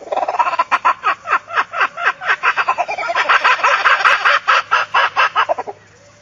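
An animal calling in a fast run of short notes, each dropping in pitch, about five a second, stopping abruptly about five and a half seconds in.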